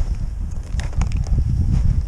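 Wind buffeting the microphone in a low rumble, with a few short crunches of footsteps through snow and dry grass.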